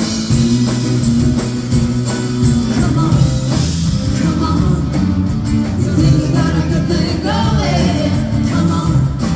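Live rock band playing loud and continuous, with a steady drum beat, bass, guitar and keyboards, and singing over it.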